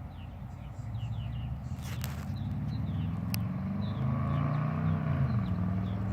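A motor vehicle passing by: its engine grows louder, then drops in pitch as it goes past near the end. Small birds chirp repeatedly over it.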